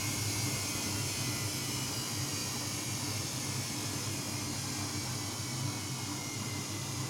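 Samsung P1271 front-loading washing machine running with a steady low hum and an even hiss, with no change in pitch or rhythm.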